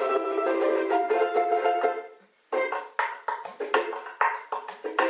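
A soprano ukulele strummed very fast in a dense run of chords. About two seconds in it stops dead for half a second, then comes back as separate, sharply struck chords a couple of times a second, each ringing out.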